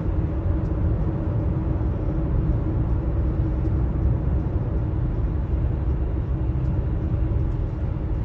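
Steady low rumble of tyres and engine heard inside a car's cabin at highway speed, with a faint steady hum.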